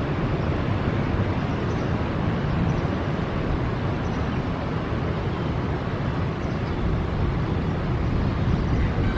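Airbus A321-200 jet airliner heard from a distance on its landing approach and touchdown: a steady rumble of engine and air noise, heaviest in the low end, with no distinct touchdown thump.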